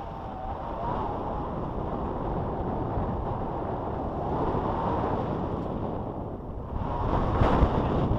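Airflow buffeting the microphone of an action camera on a selfie stick during a tandem paragliding flight: a steady rushing rumble that swells into a louder gust near the end.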